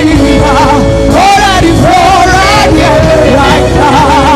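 Worship music: a voice singing with wavering, sliding pitch and strong vibrato over sustained keyboard chords and a deep bass.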